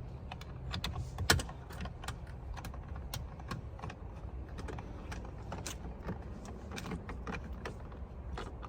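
Hand tools on a car door's handle bolts: scattered sharp clicks of a ratchet wrench run in and snug the last bolt of the door handle assembly, with one louder metallic clack just over a second in.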